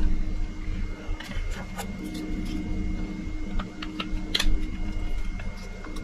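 Scattered light clicks and taps of the plastic housing of a Latchit keyless RV door lock being handled and fitted together, about half a dozen over the few seconds. A steady low hum runs underneath.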